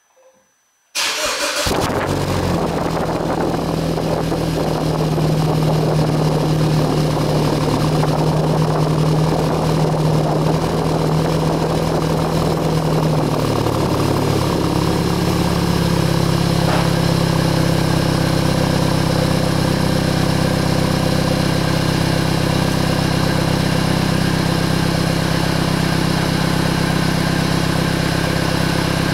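BMW Z4 sDrive20i's 2.0-litre turbocharged four-cylinder started from cold through its stock twin-tip exhaust: it catches about a second in with a brief flare, then runs at a fast cold idle. About fourteen seconds in the idle settles lower and stays steady.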